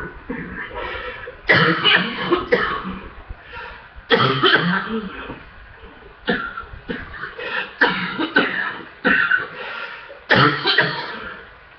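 A person in a hard coughing fit from a congested chest: repeated heavy coughs coming in clusters, one after another with short breaths between.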